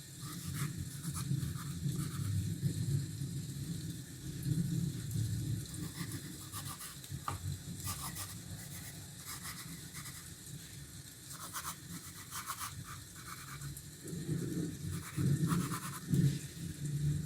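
Pencil scratching on paper in clusters of quick sketching strokes, over a low steady rumble of rain and city ambience.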